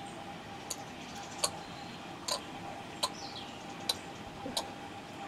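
A sharp tick repeating about every three-quarters of a second, six times, over a faint steady hum, with a short falling bird chirp about two seconds in.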